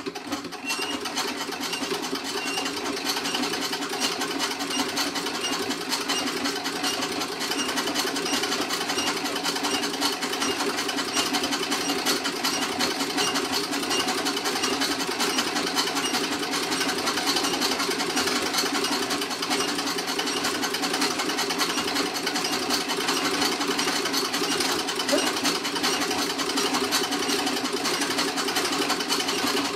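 Antique Singer 27 treadle sewing machine, its vibrating-shuttle mechanism stitching at a steady speed with a rapid, continuous clatter.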